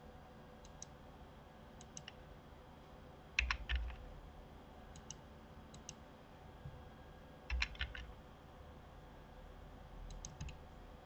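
Computer keyboard keystrokes and mouse clicks in short bunches, with heavier groups of key presses about three and a half and seven and a half seconds in and a lighter group near the end. Paired light clicks fall in between, over a faint steady hum.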